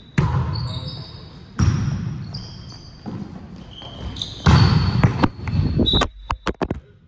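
Volleyball hits ringing out in a large gym hall: a sharp smack about a quarter second in, another at about a second and a half, and a louder flurry of hits from about four and a half seconds, with sneakers squeaking on the hardwood floor. Near the end come a few quick knocks as the camera is jostled.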